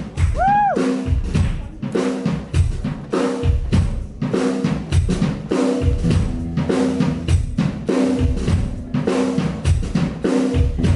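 A drum kit played live with kick and snare in a steady rhythmic beat, under a low repeating riff from another instrument: the band starting into a song.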